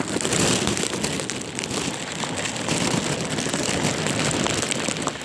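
Heavy rain pouring down steadily, a dense patter of drops striking surfaces.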